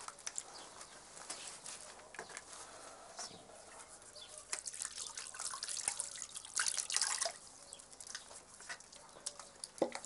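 Water poured from a clay jug over a person's hands into a bowl, splashing and dripping unevenly, loudest a little past halfway.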